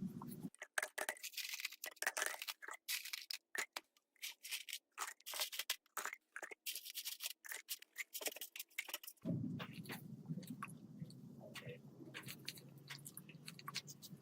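Faint, irregular sharp clicks and scrapes, then a low steady hum that starts about nine seconds in, with a few more clicks over it.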